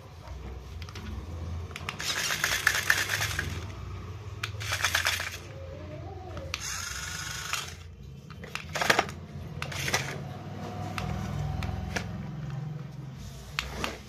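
Small electric motors of a toy remote-control stunt car whirring with a rattly plastic gear chatter in several short bursts as the remote's buttons are pressed, the wheels spinning freely while the car is held in the hand.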